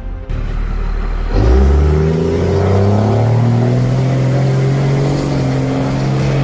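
An engine revs up about a second and a half in, rising in pitch, then runs steadily at high speed, with music playing as well.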